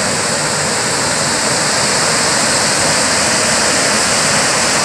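Water pouring over a small weir into a channel: a steady, loud rush of white water.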